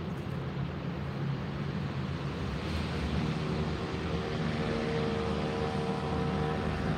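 Steady low rumble of a vehicle out of sight, growing slightly louder. From about three seconds in, a humming tone builds on top of it.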